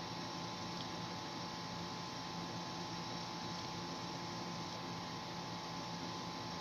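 Steady electrical hum over a background hiss, unchanging throughout, with no distinct knocks, scrapes or other events.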